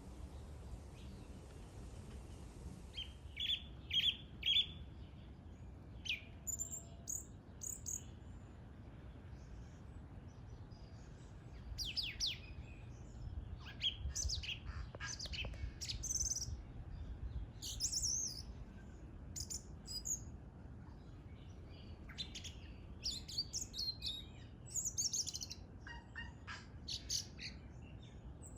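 A bird singing: phrases of quick, varied high chirps and sweeping notes that start about three seconds in and come again and again, over a low steady rumble.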